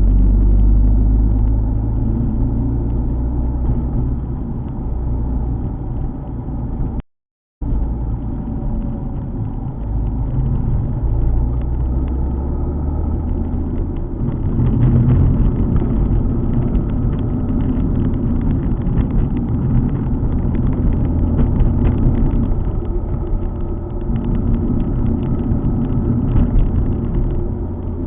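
Alfa Romeo 147 GTA's 3.2-litre V6 running under way, with a steady low engine drone and road rumble while driving, its pitch changing somewhat partway through. The sound cuts out completely for about half a second some seven seconds in.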